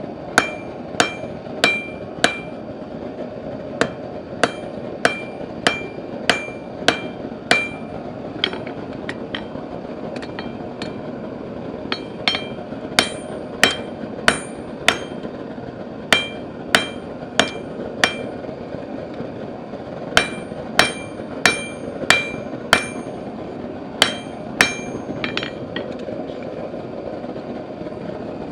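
Hand hammer striking hot steel on an anvil, blow after blow with a short metallic ring after each, about one to two strikes a second in runs with short pauses, over a steady low background noise.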